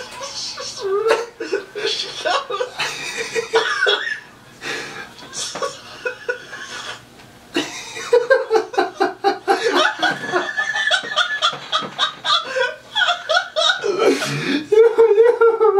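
A man laughing hard, on and off, with a long run of quick repeated laughs in the second half.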